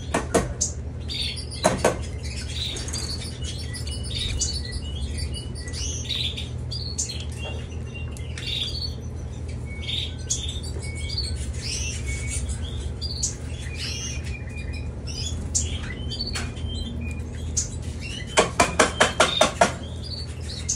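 Canaries chirping with many short, high calls over a steady low hum. A few sharp taps come near the start, and a quick run of about eight clicks comes near the end.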